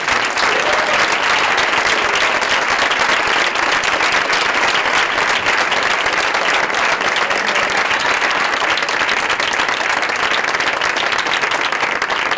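Audience applauding: a long, steady round of clapping from many hands.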